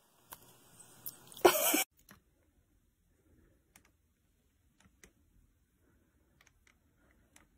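A short, loud vocal sound from a person about one and a half seconds in, over a faint hiss that cuts off abruptly; then near silence with a few faint clicks.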